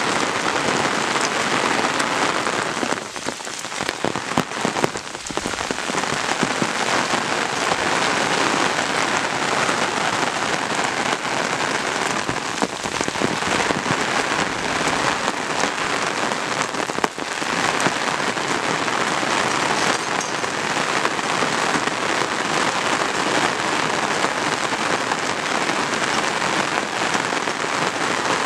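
Steady rain falling, an even hiss that dips briefly about three seconds in and again around seventeen seconds.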